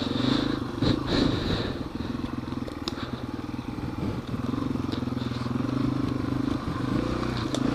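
Yamaha TW200's single-cylinder four-stroke engine running while the bike is ridden off road, its note rising and easing with the throttle. A few sharp knocks and clatter come from the bike over rough ground.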